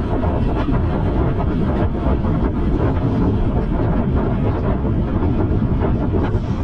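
Wind buffeting the microphone on a moving ride, over steady traffic and road noise.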